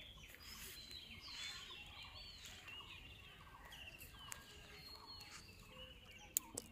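Faint chirping and calling of birds, many short calls overlapping, with two sharp clicks near the end.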